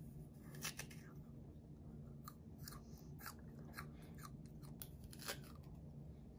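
A fresh, crisp jujube being bitten and chewed: a string of faint, sharp crunches at irregular intervals.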